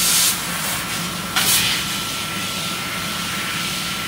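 Amada LC3015 fibre laser cutting machine running: a steady hiss with a low hum and a constant thin whine, broken by two short, louder blasts of hiss, one at the start and one about a second and a half in.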